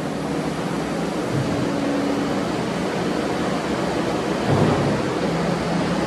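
Kubota SVL95-2S compact track loader's four-cylinder diesel engine running steadily while the machine lowers its bucket and turns on its tracks, with a brief surge about four and a half seconds in.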